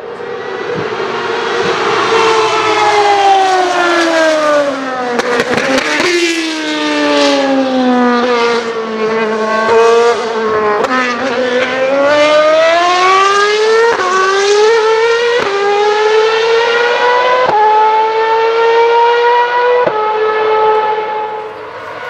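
2012 Formula 1 car's 2.4-litre V8 engine at high revs. Its pitch falls through the first half as the car slows, with a crackle of downshifts. It then climbs again as the car accelerates away, with sharp upshifts every second or two.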